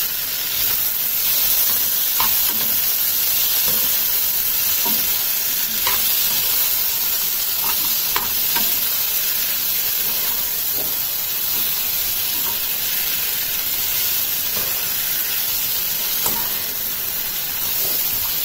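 Mixed vegetables frying in ghee and oil in a nonstick saucepan, sizzling steadily while a metal spoon stirs them, with occasional short scrapes and taps of the spoon against the pan.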